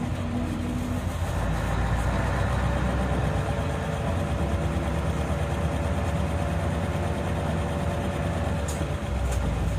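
Isuzu Erga city bus under way: a steady low engine drone with a faint whine that slowly rises in pitch as the bus gathers speed.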